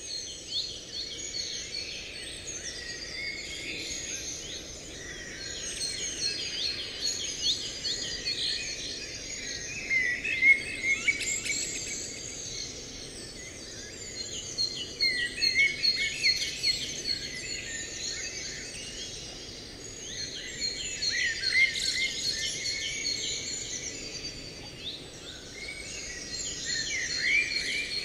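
Many songbirds chirping and calling at once in a dense chorus over a steady low hiss, swelling louder and easing off in waves.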